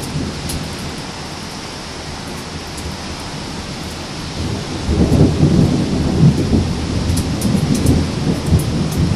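Steady rain with thunder: a long, low rumble of thunder builds about five seconds in and keeps rolling.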